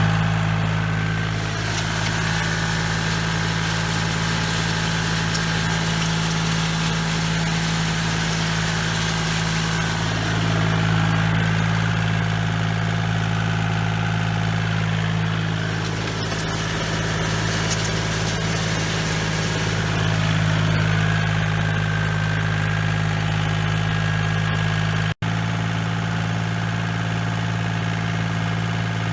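Compact tractor engine running steadily while pulling a three-point box blade over freshly spread crushed limestone. For an instant near the end the sound cuts out.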